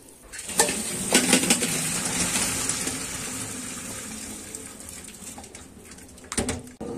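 Boiled pine-cone water being poured from the pot through a strainer: a steady splashing pour that slowly tapers off. A few metal clanks from the pot and strainer come early, and more near the end.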